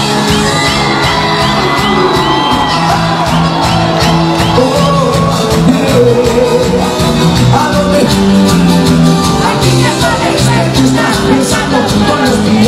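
Live cuarteto band music, loud and continuous with a steady beat, with a crowd shouting and singing along.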